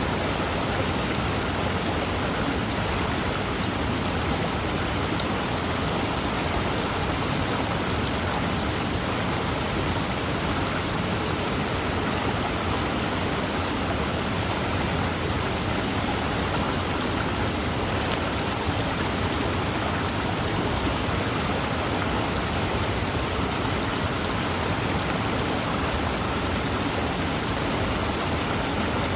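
Fast-moving river rushing steadily: an even, unbroken roar of running water with no breaks or separate events.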